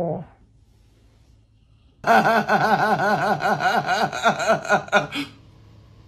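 A falling howl from the dreaming dog trails off right at the start. After a short quiet, a voice laughs in quick repeated pulses for about three seconds.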